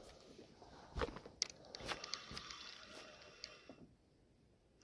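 Faint scattered clicks and soft knocks from a spinning rod and reel being handled.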